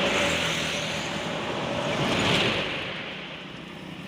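Bus passing close by on the road: engine and tyre noise swells to a peak about two seconds in, then fades away.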